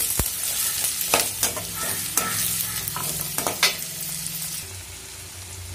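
Chopped shallots, garlic and ginger sizzling in hot oil in a stainless steel kadai, stirred with a perforated metal ladle that scrapes and clinks against the pan several times.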